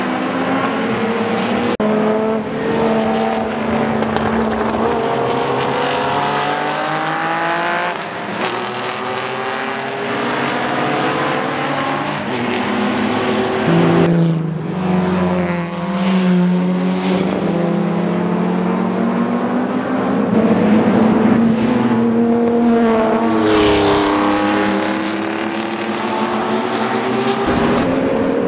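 Engines of several classic racing cars running hard on track. The engine notes climb and break off again as the cars shift up through the gears, and the pitch rises then falls as cars pass close by.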